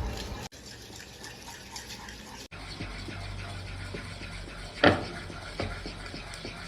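Liquid being poured into a glass, with a sharp clink about five seconds in.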